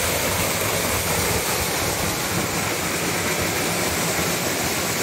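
Mountain waterfall pouring down a rock face into a pool: a steady, unbroken rush of falling water.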